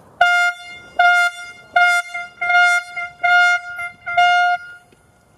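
Hand-held canned air horn sounded in a series of about six short blasts, each at the same steady pitch, stopping about four and a half seconds in.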